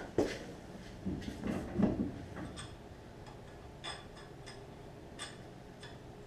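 Metal knocks and clinks as a wheel is fitted onto a rear axle hub and a lug nut is put on, then a few light metallic ticks, about one a second.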